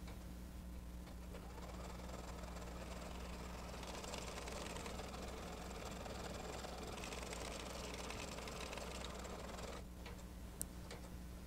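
Computerized embroidery machine running as it stitches out a placement line, the hoop moving under the needle. It stops about ten seconds in, followed by a single click.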